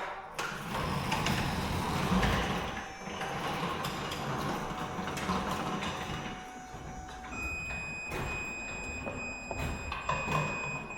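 Garage door hardware being worked by hand: metal rattling, scraping and knocking of the door and its steel track, with a low rumble in the first few seconds. A steady high-pitched tone sounds through the last few seconds.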